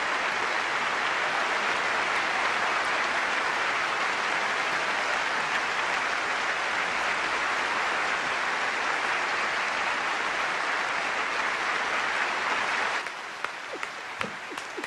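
A large crowd applauding, a dense steady wash of clapping. About thirteen seconds in it drops off abruptly to quieter applause with a few separate hand claps close by.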